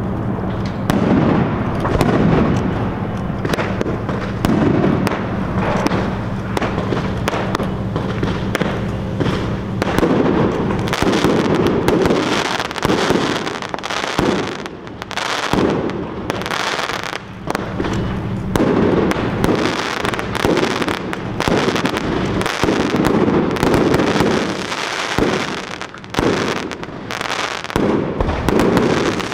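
Many sharp bangs and pops in quick, irregular succession throughout. A steady low hum runs underneath for about the first third and returns later.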